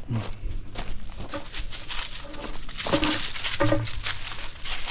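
Footsteps crunching through dry fallen leaves, an irregular run of crackling steps, with two short vocal sounds about three seconds in.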